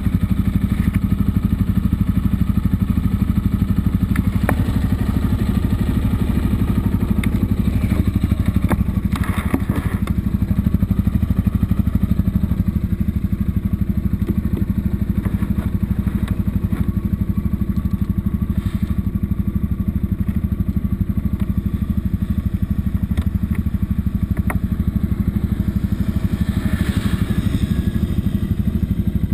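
Yamaha Ténéré motorcycle engine running steadily, with a few short knocks.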